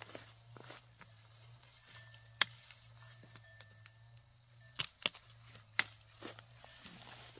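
Wild greens snapped off by hand, several sharp snaps of breaking stems: one about two and a half seconds in, then a quick cluster around five to six seconds. Leafy undergrowth rustles between the snaps.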